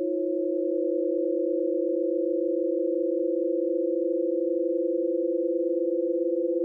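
Two steady pure electronic tones, one lower and one higher, held together without a break, with a slight wavering beat between them: sustained sine tones from an electroacoustic piece.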